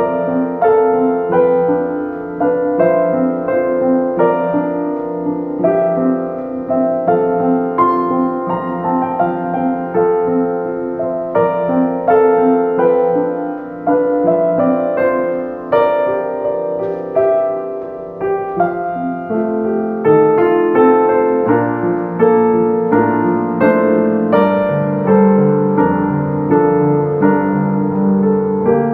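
Piano playing a calm instrumental piece: single notes struck one after another over held lower notes, with the bass line moving lower near the end.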